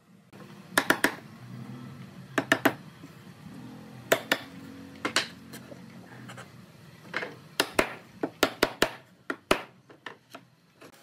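Pine boards knocking and clattering against each other and the wooden workbench as they are handled, lifted and set down. Sharp wooden knocks come at irregular intervals, often in quick clusters of two or three.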